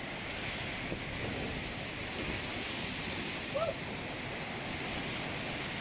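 Sea surf breaking and washing around a rock breakwater: a steady rush of waves. A short faint call rises briefly over it about three and a half seconds in.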